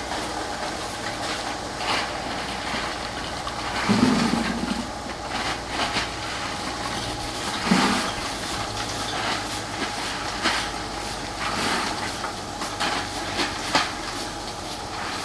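Rotary drum dryer running: a steady mechanical hum with irregular clatter and knocks, and two louder thumps about four and eight seconds in.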